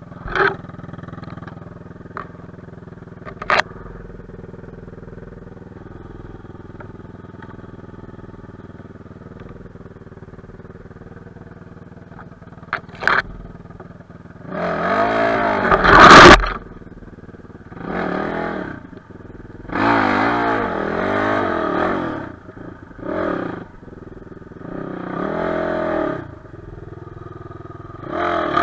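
Enduro motorcycle engine running low and steady, with a few sharp knocks, then revved in about half a dozen bursts that rise and fall in pitch from about halfway through.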